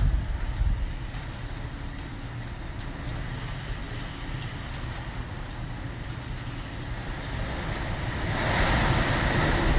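Typhoon wind rushing over the building's roof: a deep, steady rumble like a ten-wheel truck running on the roof, with a gust swelling louder and hissier near the end.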